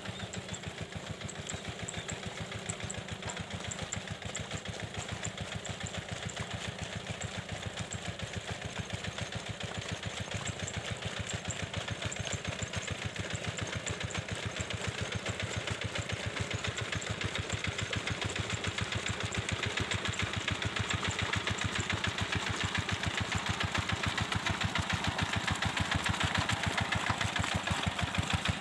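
Paddy-field hand tractor engine running with a steady rapid beat, growing gradually louder.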